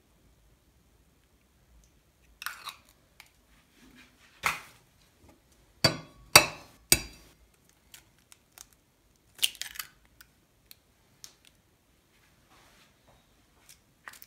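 Raw eggs cracked against the rim of an enamel steel bowl: a cluster of sharp taps of eggshell on the metal rim in the middle, with short crackling of shell being broken and pulled apart before and after.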